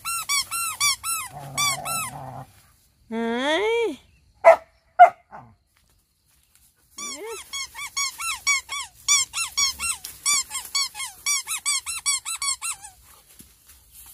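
Dogs at play, making rapid runs of high-pitched squeaking whines with a short growl among them. Two sharp, loud barks come about four and a half and five seconds in, then another long run of squeaks.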